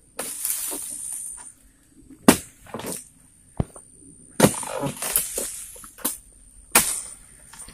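Pole-mounted oil palm harvesting chisel chopping into the crown of a short oil palm: about six sharp, unevenly spaced strikes, after a rustle in the first second or so.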